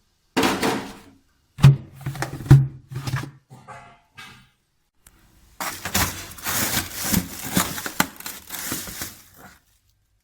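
Things being taken out of a frosted-up fridge freezer: a few knocks and thunks of items and containers, then a few seconds of plastic bags crinkling and rustling.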